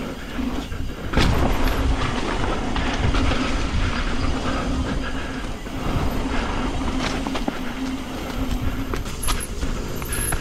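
Yeti SB150 full-suspension mountain bike riding down a dirt trail: tyres rumbling over the ground, with the bike rattling and knocking over rough spots and a steady hum under it.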